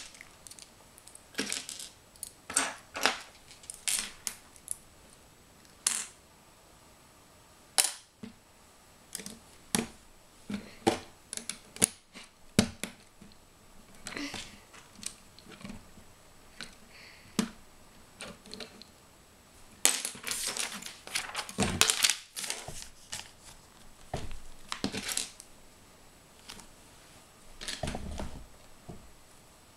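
Plastic Lego bricks clicking and clattering as hands sort through a loose pile of pieces on a table: irregular sharp clicks, busiest around twenty seconds in.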